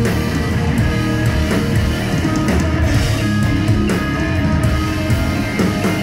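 Live instrumental progressive rock: electric guitar playing melodic lines over bass guitar and a drum kit, with regular drum hits.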